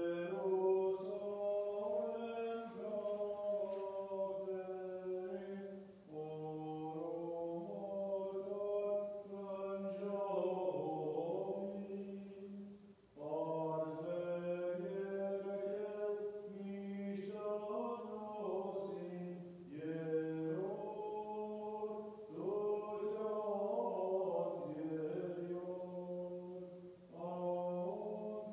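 A man's solo liturgical chant in the Armenian Church style, sung by a priest on long held notes that move slowly in pitch. The chant comes in phrases of about seven seconds, each followed by a brief pause for breath.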